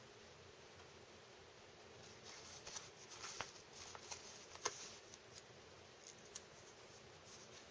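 Faint handling of paper stickers: soft rustles and a few short clicks as stickers are peeled off a sheet and pressed onto a planner page, starting about two seconds in after faint room tone.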